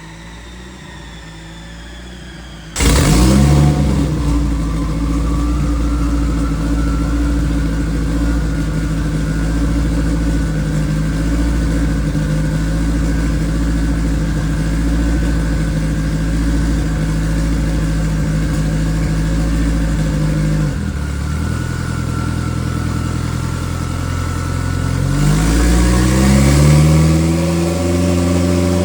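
Turbocharged race car engine running on a chassis dyno. After a quieter stretch of falling revs, it comes on suddenly and loudly about three seconds in and holds a steady speed under load for most of the time. It drops back about two-thirds of the way through, then revs up again and falls off near the end.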